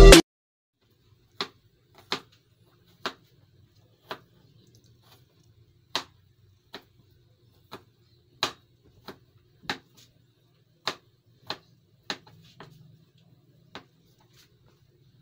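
Sharp single clicks, about one a second at uneven intervals, over a faint low hum.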